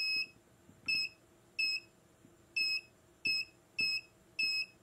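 MCL-Tech inductive short locator beeping: seven short, high-pitched beeps at uneven intervals as its probe passes over the ECU board. Each beep marks the probe picking up the short-circuit current in the trace, pointing to where the short is.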